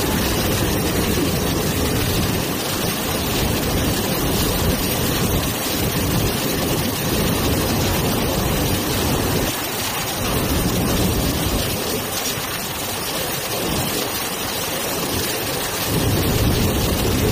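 Freight train running through floodwater over the tracks: a steady rush of churned water and spray, mixed with heavy rain.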